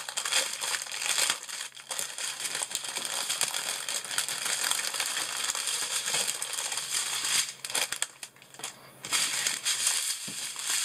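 Plastic packaging of a diamond painting kit crinkling and rustling as it is handled, with a short lull about eight seconds in.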